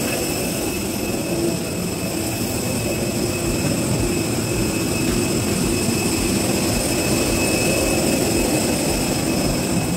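Steady jet aircraft noise: a continuous high whine with several steady high tones over a low rumble.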